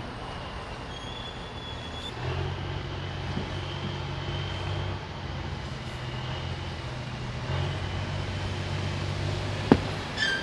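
A vehicle running steadily with a low hum, and a single sharp click near the end.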